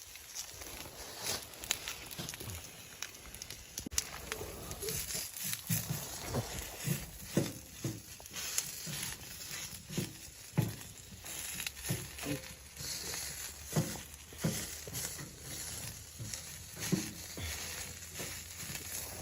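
Irregular crinkling and rustling handling sounds with scattered soft knocks and clicks.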